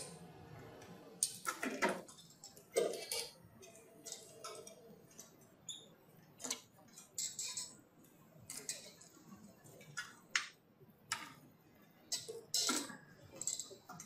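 Irregular faint clicks and short high-pitched blips from a PRC Accent 1400 speech-generating device being worked with a joystick as symbol pages are selected.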